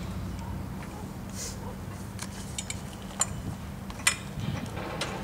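Light metallic clicks and knocks from a gun-lock clamp being fitted onto the steel gun bar of a line striper, one louder click about four seconds in, over a steady low hum.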